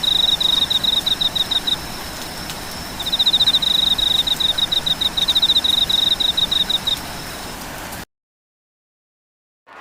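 Steady rain hiss with a rapid high chirping trill, about ten chirps a second, in two runs separated by a short gap, over a faint steady high whine. The sound cuts off abruptly to silence about eight seconds in.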